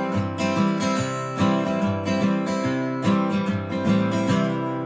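Steel-string acoustic guitar strummed, chords ringing in a steady country rhythm, with no voice.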